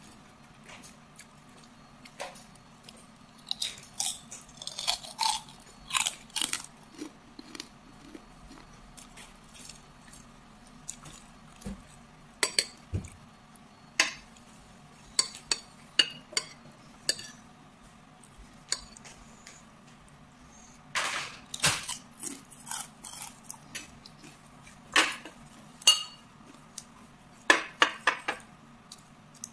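Metal spoon clinking and scraping on a ceramic plate in short clusters of sharp clicks, mixed with close-up chewing and crunching of food. A faint steady hum runs underneath.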